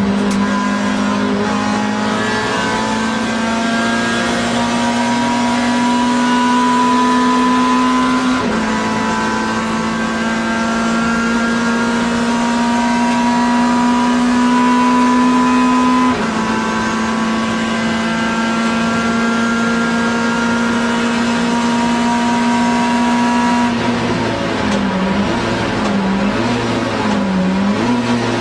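Racing car's engine at high revs, heard from inside the cabin, pulling steadily up through the gears with a sharp upshift about a third of the way in and another just past halfway. Near the end the revs dip and rise several times.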